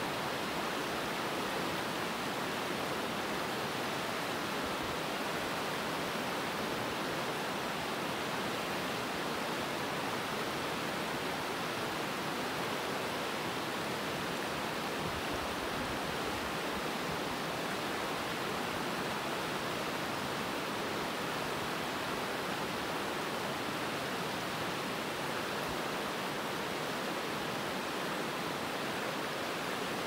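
Ausable River rapids: water rushing steadily over a shallow, rocky riverbed.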